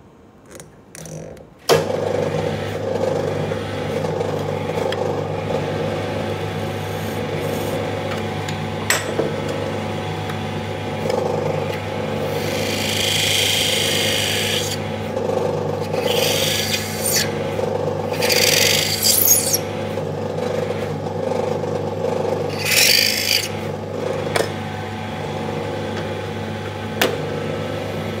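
A small lathe motor spinning a drill chuck starts up about two seconds in and runs with a steady hum. A hand-held turning tool scrapes and cuts the spinning wooden brush-handle blank in several short bursts in the second half, throwing off shavings.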